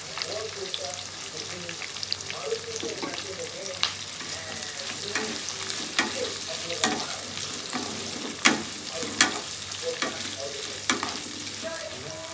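Chopped onions sizzling in hot oil in a non-stick kadai, stirred with a wooden spatula. A steady frying hiss runs under sharp clicks and knocks of the spatula against the pan, which are loudest in the second half.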